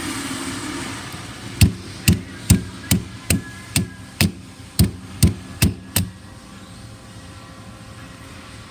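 A hammer tapping pins into a bag clamp: eleven sharp strikes, about two a second, then they stop.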